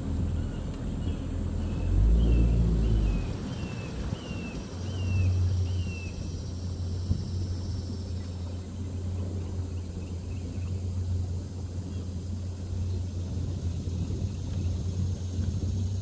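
A boat's outboard motor running steadily at low speed, with a low rumble swelling briefly about two seconds in. Over it a bird repeats a short falling call about eight times in the first six seconds.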